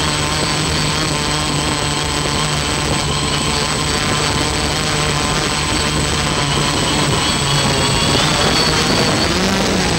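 Hexacopter's electric motors and propellers whirring steadily, picked up by the onboard camera, with the pitch rising near the end as the throttle comes up. A steady high whine from the onboard audio/video link runs throughout.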